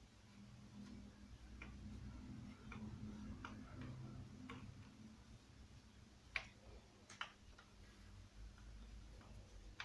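Faint, scattered light clicks and ticks of tools and chainsaw parts being handled during crankcase disassembly, with two sharper clicks about six and seven seconds in, over a low hum.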